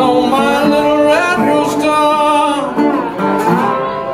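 Metal-bodied resonator guitar played in a blues, with a man singing over it, his voice sliding between notes.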